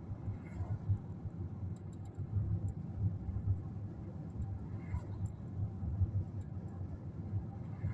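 Low, uneven rumble of a vehicle in motion, with faint scattered clicks.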